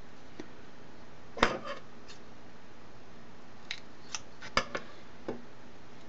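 Scattered sharp clicks and taps, the loudest about a second and a half in and another around four and a half seconds in, from small parts and tools being handled on a workbench while heat shrink tubing is fitted to an RC car's motor wires.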